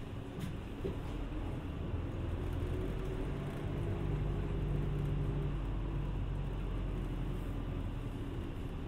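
Interior of a city route bus under way: the engine hum and road noise run steadily, swelling a little through the middle and easing off near the end.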